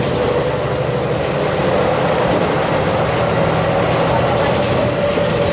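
Volvo B270F bus engine running, a steady drone with a high whine over it that creeps slightly higher near the end.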